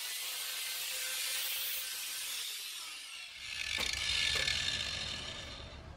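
Parkside PWS 125 E4 angle grinder with a grinding stone, lifted off the steel and winding down, its high whine fading over about three seconds. Then the grinder is set down on the metal workbench with a couple of knocks.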